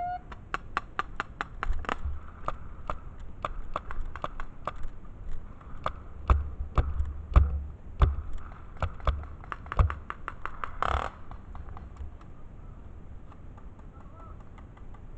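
Paintball fire: a run of sharp, irregular pops from markers shooting and paintballs striking, with a brief louder burst near the end of the shooting. The pops stop about three-quarters of the way in.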